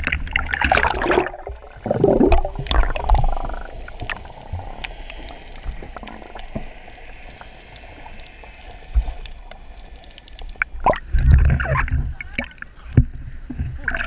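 Seawater splashing and sloshing over a waterproof action camera at the surface. In the middle stretch the camera is under water, and the sound turns muffled and gurgling. Loud splashes return near the end as it breaks the surface again.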